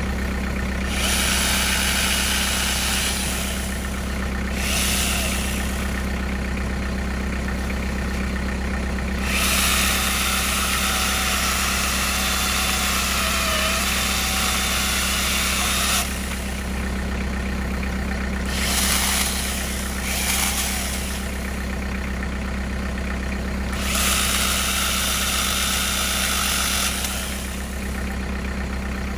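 Cordless DeWalt 60-volt angle grinder fitted with a chainsaw attachment, running in repeated bursts of a second to several seconds as its chain cuts through tree limbs. Under it, a tractor engine idles with a steady hum.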